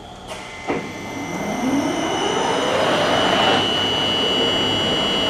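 Spindle of a Union BFT 130/6 horizontal boring mill starting after two clicks, its 30 HP spindle drive rising in pitch as it spins up to 200 RPM over about three seconds, then running at a steady whine.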